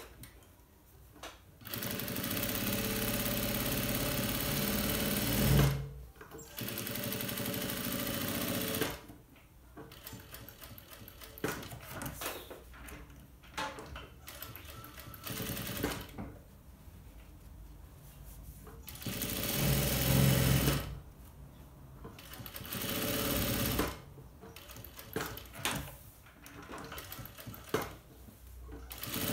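Straight-stitch sewing machine running in several runs of a few seconds each, sewing a topstitch along a fabric hem. It stops between runs, and short clicks fall in the pauses.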